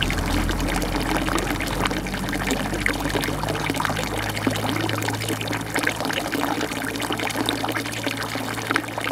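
A steady rushing noise, like running water, with light crinkling of a paper food wrapper being handled.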